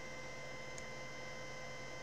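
Steady background hum carrying several constant whining tones, with one short, faint click of a computer mouse a little under a second in.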